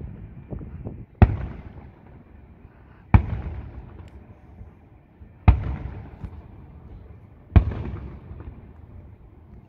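Aerial firework shells bursting overhead: four sharp booms about two seconds apart, each trailing off in a rumbling echo.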